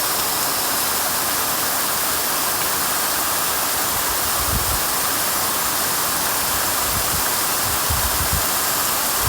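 Waterfall: a loud, steady rush of falling water. Short low rumbles on the microphone come in from about halfway through.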